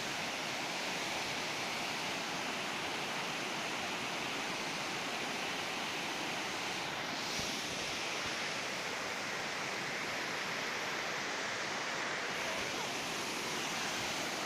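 Waterfall's water rushing steadily, an even unbroken hiss.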